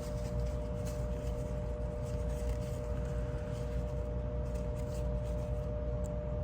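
Steady low hum with two constant tones, with faint light clicks from small knife parts being handled.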